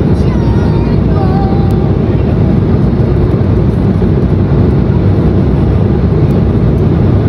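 Steady, loud roar inside an airliner cabin in flight: the Embraer E190's GE CF34-10E turbofan engines and the rushing airflow, heard from a window seat over the wing.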